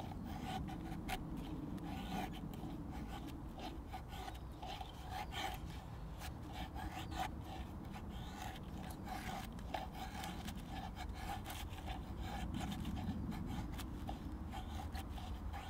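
Thin wooden stick drawn again and again along the edge of an Agawa ADK26 hatchet blade fixed in a log, shaving off fine feather-stick curls: a run of short scraping strokes.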